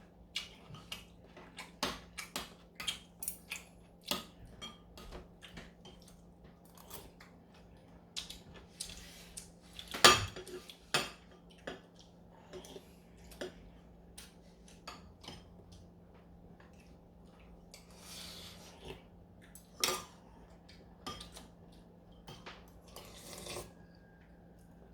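Spoons and chopsticks clinking and knocking against bowls and dishes during a meal of galbitang. Short clicks come at an uneven pace, with a louder knock about ten seconds in and another near twenty.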